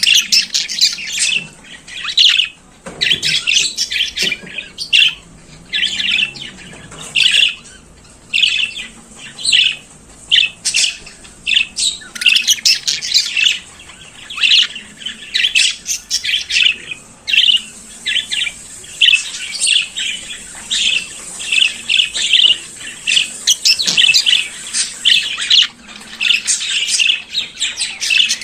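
Budgerigars warbling and chirping continuously, a rapid run of short, high chirps and chatter with occasional squawks.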